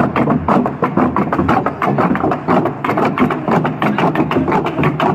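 Traditional long drums beaten together in a fast, steady rhythm of repeated strikes.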